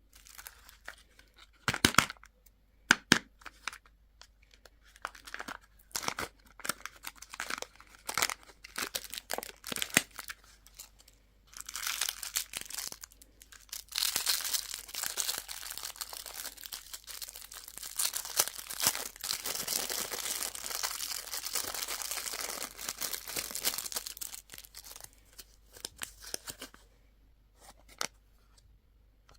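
Candy packaging being handled and torn open: scattered sharp crackles and clicks at first, then about fifteen seconds of continuous wrapper crinkling and tearing, then a few light clicks near the end.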